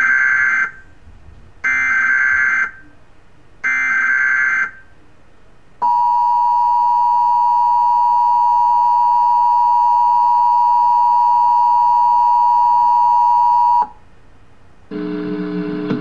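Emergency Alert System tones played through a television: three one-second bursts of the SAME header's warbling data tones, a second apart, then the two-tone attention signal, a steady dual tone near 1 kHz held for about eight seconds that cuts off suddenly. This is the start of a national EAS test.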